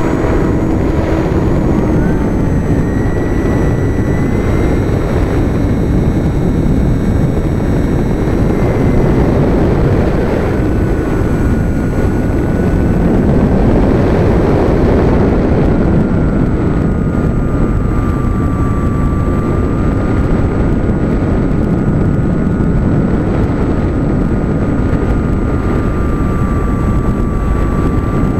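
Radio-controlled model floatplane in flight, heard from a camera mounted on the plane: its motor and propeller run at steady high power as a whine that shifts slightly in pitch now and then. Heavy wind rush over the airframe and microphone runs under it.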